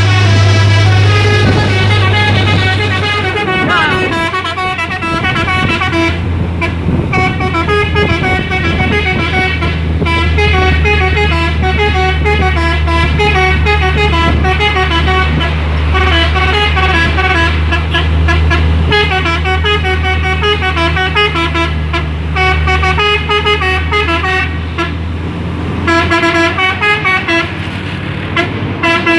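Multi-tone 'telolet' horn on a Hino dump truck playing its jingle over and over, a quick tune of switching horn notes, over the steady low running of the truck's diesel engine.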